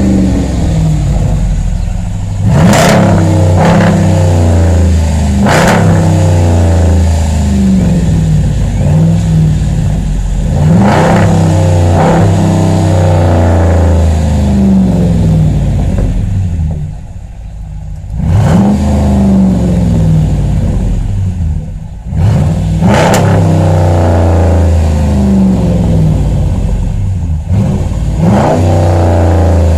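2014 Ram's 5.7 Hemi V8, breathing through a true dual exhaust with two single-chamber Jones mufflers, free-revved about eight times while parked. Each throttle blip rises sharply and falls back to idle, with a quieter idle spell a little past halfway.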